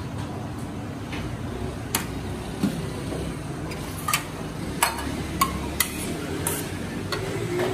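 Steel ladle clinking against a steel serving bowl and the rim of a large steel pot as chickpea curry is dished out: about eight sharp metallic clinks, a few ringing briefly, over a steady low background rumble.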